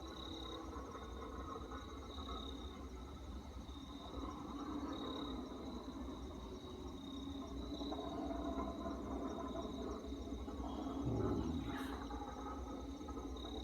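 Night insects chirping steadily in a high, pulsing trill, under a weird rumbling, droning noise that slowly swells and is loudest about eleven seconds in before easing off.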